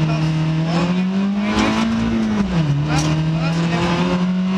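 VW Polo rally car's engine heard from inside the cabin under hard acceleration: the pitch climbs, drops at a gear upshift about halfway through, then climbs again.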